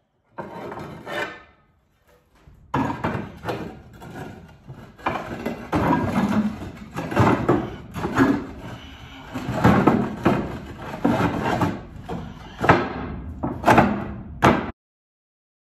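Roof tiles being lifted, slid and set back down while a tile replacement solar mount is fitted, with irregular knocks, clatters and scrapes. The noise stops suddenly near the end.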